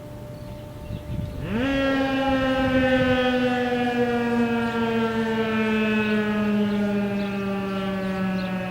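Federal Signal 2001-130 single-tone electromechanical tornado siren doing a growl test. About a second and a half in, the siren spins up and its tone climbs quickly, then the pitch slowly sinks as the rotor winds down.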